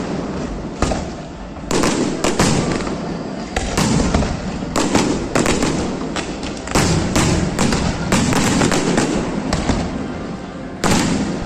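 Fireworks display: an irregular, rapid series of sharp bangs in clusters over a near-continuous crackle.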